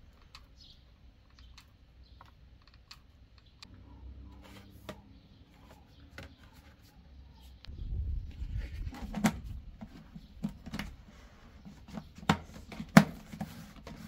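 Hands handling and fitting hard plastic parts: scattered light clicks, then from about eight seconds in low bumps and several sharp knocks, the loudest near the end as a plastic lid is pressed onto a plastic bucket.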